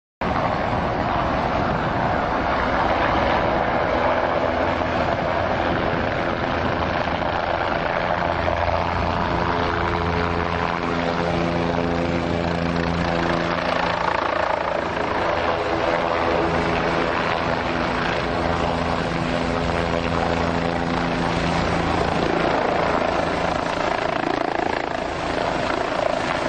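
Bell 206L LongRanger helicopter hovering low, its single turbine engine and rotor running loud and steady.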